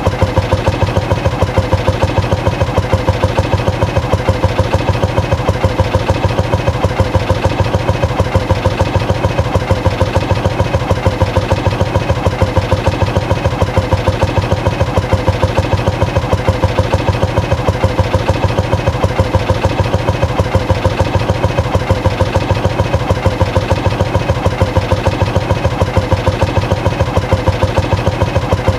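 Motorcycle engine idling steadily, an even, unchanging pulse of firing beats.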